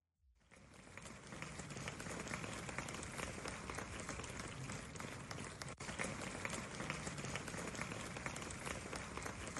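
Audience applause: a dense, steady patter of many hands clapping that starts about half a second in.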